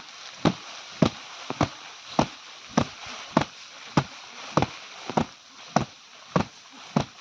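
Steady, regular chopping strikes, about one every 0.6 seconds, each a sharp knock with a short low thud.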